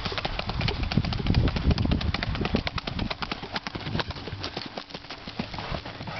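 Quick, rapid clacking hoofbeats of a Standardbred mare going at a fast saddle gait past close by.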